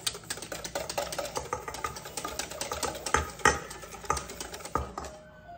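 Wire whisk beating waffle batter in a stainless steel mixing bowl as the dry ingredients go in: a fast, uneven run of clicks and scrapes against the metal, with a few louder knocks in the second half. It stops about five seconds in.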